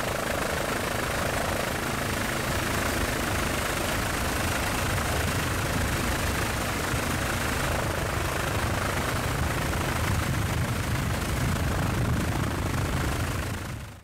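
Helicopter engine and rotor noise, steady and unbroken, heard from aboard the aircraft.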